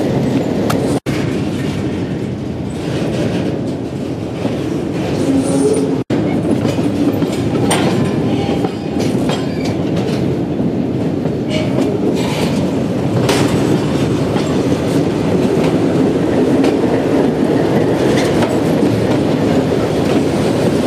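Freight train of covered hopper cars rolling slowly past, wheels clicking over the rail joints with a few short squeals, then diesel locomotives running as they pass. The sound cuts out twice for an instant near the start.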